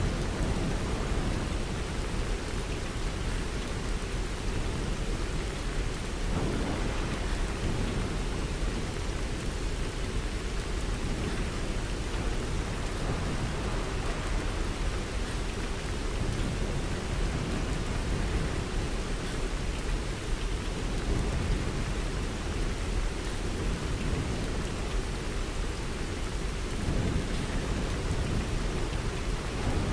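Steady heavy rain, with a deep low rumble underneath that swells about six seconds in and again near the end.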